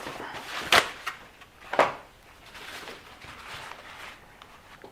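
Two sharp knocks about a second apart as small objects are set down and handled on a work surface, then faint rustling handling noise.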